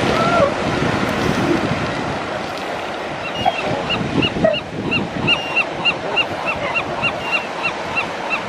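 Steady surf washing on the beach, with wind on the microphone. From about three seconds in, a rapid string of short high chirps comes about three times a second.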